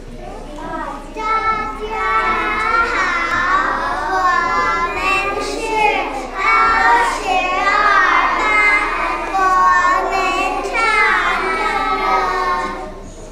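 A group of young children singing together in Mandarin Chinese, starting about a second in and stopping shortly before the end.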